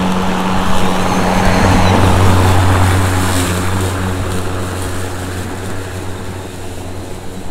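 Ryobi 40-volt brushless cordless self-propelled lawn mower running and cutting long grass: a steady electric hum with a rushing noise of the blade through the grass, fading over the last few seconds as the mower moves away.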